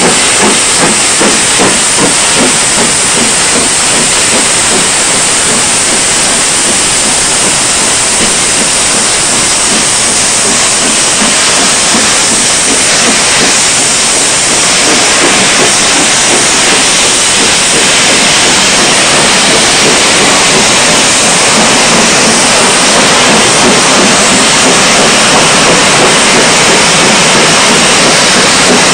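Four-cylinder LMS Princess Coronation class steam locomotive 6233 Duchess of Sutherland accelerating a train. Its exhaust beats come about two a second, with a loud hiss of steam. The beats fade over the first few seconds into a steady rush as the coaches roll past.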